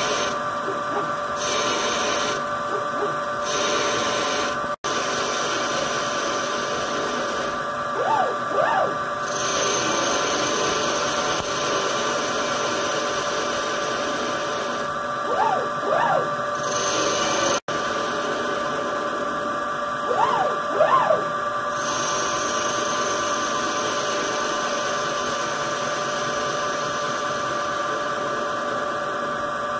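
Homemade CNC lathe turning an aluminium ball: a steady machine hum as the spindle runs and the tool cuts. Every few seconds the drive motors give two quick whines that rise and fall in pitch, as the axes make fast moves between cutting passes.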